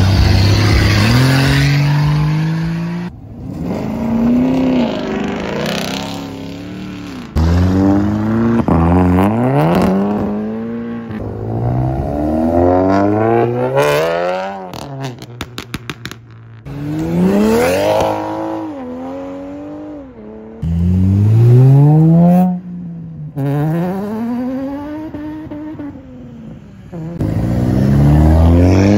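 Several cars accelerating hard one after another, engines revving up and dropping back repeatedly as they pull away. About halfway through, a quick run of sharp exhaust pops.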